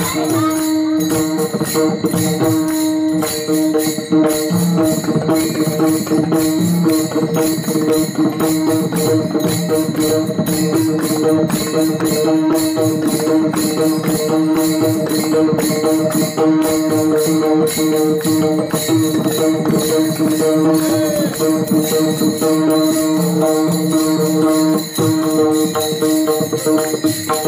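Devotional bhajan music with many pairs of small brass hand cymbals (taal) struck together in a fast, even rhythm over a sustained drone and a moving melody.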